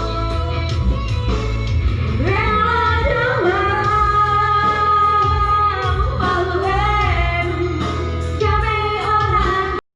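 A song with a woman singing over a heavy, steady bass line; the sound cuts out to silence for a moment near the end.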